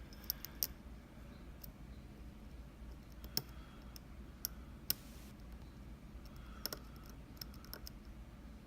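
Light metallic clicks and ticks of a dimple pick and tension tool working the pin stack of an Anzbe HS7 dimple lock, irregular and sharp, a few louder than the rest.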